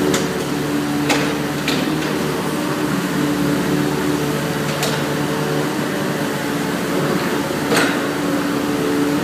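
Hitachi mini excavator's engine running steadily, with four brief knocks spread through.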